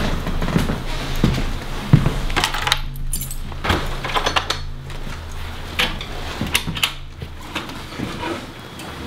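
Footsteps on a wooden floor with scattered metallic clinks and jingles, then the front door's latch and the door opening, over a low steady hum.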